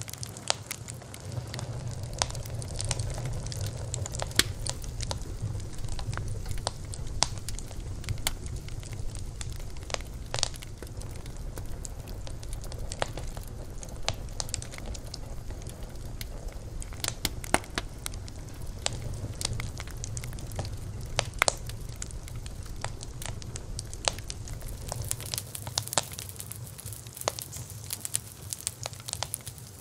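Wood fire burning, with irregular crackles and sharp pops over a low, steady rumble of the flames; the rumble drops away about 25 seconds in.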